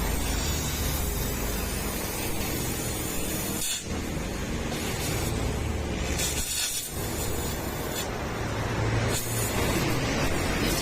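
Motorcycle engine running steadily through an aftermarket M4 exhaust muffler: a low steady drone under a broad hiss, dipping briefly twice.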